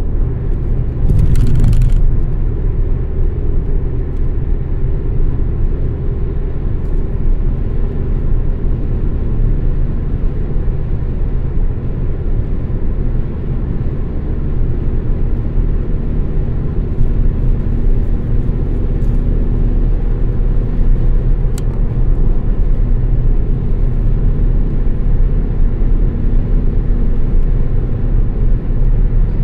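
Car interior road noise at highway speed: a steady low rumble of tyres and engine. About a second in there is a louder rush of hiss lasting about a second.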